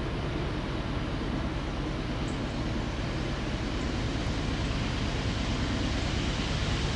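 Distant rumble of an approaching freight train's lead GE diesel locomotives, steady and growing slightly louder near the end as the train draws closer.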